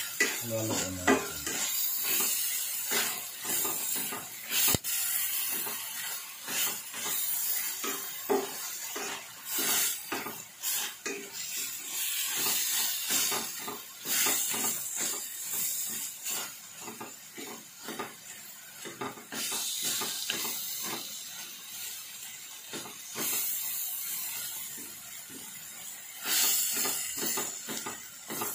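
Chopped tomatoes, onion and garlic sizzling in oil in a stainless steel frying pan. A wooden spatula scrapes and knocks against the pan again and again as they are stirred.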